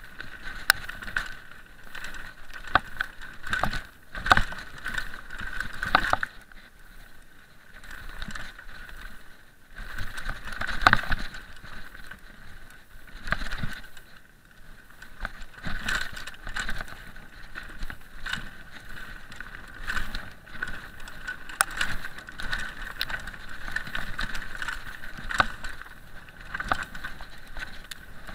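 Mountain bike riding fast down a rocky singletrack: tyres crunching over loose stones and the bike knocking and rattling over bumps, with sharp knocks every second or so.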